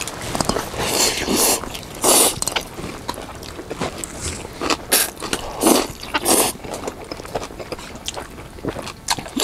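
Close-up eating sounds: chewing and biting of pan-fried pollack pancakes and noodles, with scrapes of utensils, coming in irregular short bursts.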